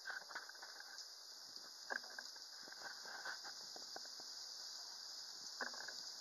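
Faint, steady high-pitched buzz of insects, with a few faint clicks.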